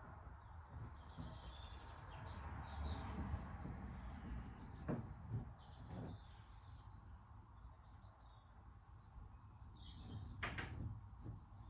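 Birds chirping over a low background rumble, with a few knocks and clicks from the car door being worked on its new lower hinge, the clearest about halfway through and near the end.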